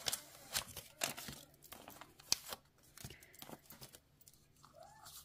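Paper masks being peeled off cardstock and handled: a series of quick paper rustles and crinkles.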